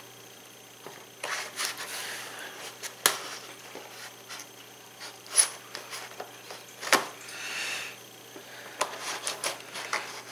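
Kitchen shears cutting open a cardboard product box: scattered snips and sharp clicks, the strongest about 3 and 7 seconds in, with scraping and a brief rustle of the cardboard as the box is turned and handled.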